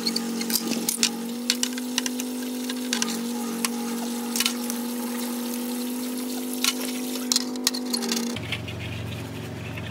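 A small motor's steady hum with many sharp clinks and ticks scattered over it; the hum changes about eight seconds in.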